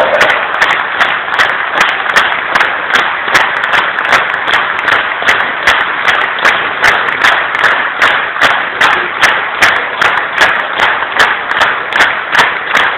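Large crowd clapping in unison, a steady rhythmic beat of about two claps a second.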